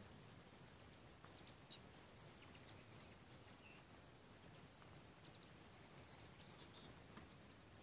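Near silence: faint outdoor ambience with a few faint, short, scattered bird chirps.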